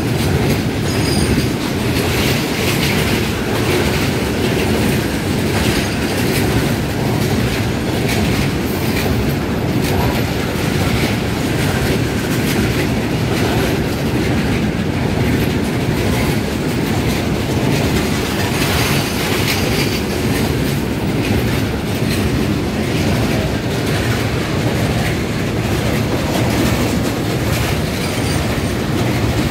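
Covered goods wagons (BCNHL type) of a freight train rolling past close by: a steady, loud rumble with the clatter of wheels over the rail joints.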